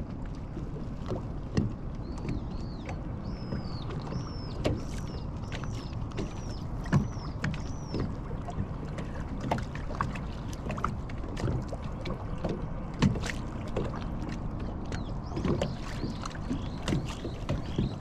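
Water lapping and knocking against the hull of a small boat moving slowly across a lake. Over it a bird repeats short high chirps about twice a second through the first half, and again faintly near the end.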